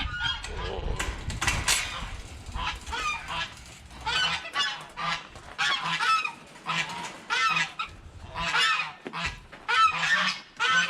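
Backyard poultry calling over and over in short pitched calls, about two a second, while the flock crowds around a tray of watermelon.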